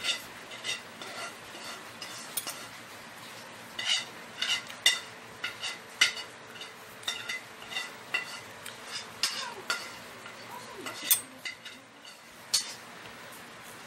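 Cutlery clinking and scraping against a plate while spaghetti is twirled up and eaten: many light, irregular clicks with a few sharper clinks.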